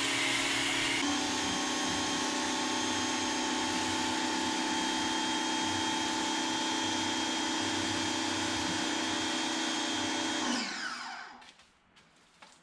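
Ryobi 1600 PSI electric pressure washer running steadily: a motor whine over the hiss of the water jet, with a small shift in tone about a second in. Near the end the motor winds down with a falling whine and stops.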